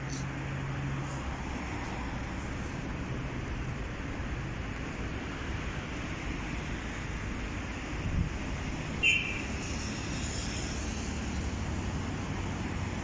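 Steady road traffic noise of a city boulevard, with a brief thump about eight seconds in and a short sharp click a second later.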